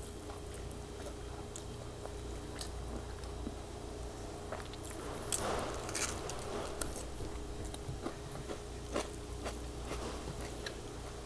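Biting into a whole raw tomato and chewing, with one louder run of bites about five to six seconds in among quieter scattered chewing clicks.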